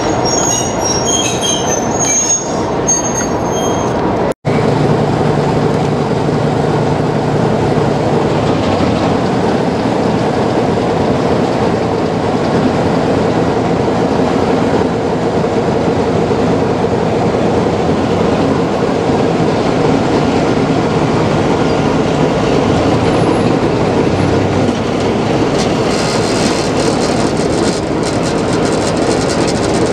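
Railway carriages rolling past with high-pitched wheel squeal for the first few seconds. After a cut, a Class 33 'Crompton' diesel locomotive's Sulzer eight-cylinder engine works steadily as it hauls the train, heard from an open coach window just behind it, with the wheels running on the rails.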